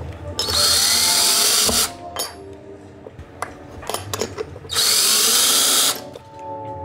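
Cordless drill driving screws through metal angle brackets into a cabinet panel: two runs of about a second and a half each, the motor whine rising as each one starts, with small clicks between.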